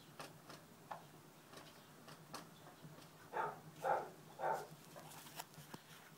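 A dozing laying hen makes three short, soft snoring sounds in a row, about half a second apart, a little past halfway through. Faint ticks and small rustles come and go around them.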